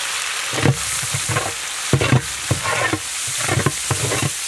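Ginger-garlic paste sizzling as it fries in hot oil in a large pot, with a long-handled ladle stirring and scraping through it in irregular strokes.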